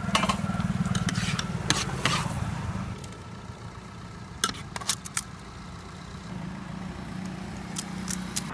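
An engine idling with a steady low hum, loudest for the first three seconds and fainter after. A few sharp clicks come about four and a half to five seconds in and again near the end.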